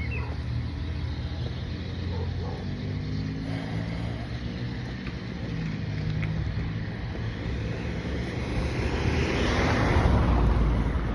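Motor vehicle engine running nearby with a steady low hum, then a vehicle passing close, its tyre and engine noise swelling to its loudest near the end before easing off.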